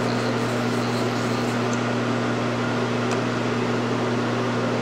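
Steady electric hum over a constant hiss from powered-up machine-shop electrics, such as a CNC knee mill and its controller cabinet, with no cutting or spindle changes heard.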